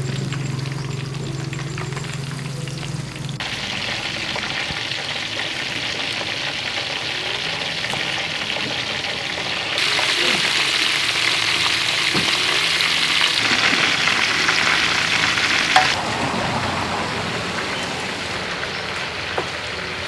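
Flour-battered blue crab deep-frying in hot oil in a wok, a steady dense sizzle as the pieces are stirred and turned. The sizzle is loudest for several seconds in the middle.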